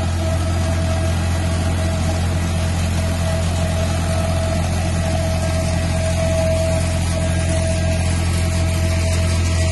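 John Deere tractor engine running steadily while powering a Kefeli KF1800 hazelnut harvester, a low drone with a steady whine above it.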